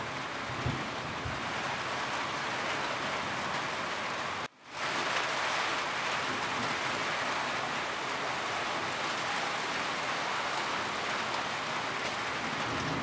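Steady rain falling on a roof, a dense even hiss. It cuts out for a split second about four and a half seconds in, then resumes as before.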